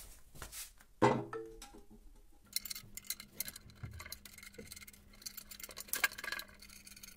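Faint, irregular small metallic clicks and taps of steel bolts being fitted by hand into a drill press's cast-iron base to hold the column flange. A short louder sound about a second in.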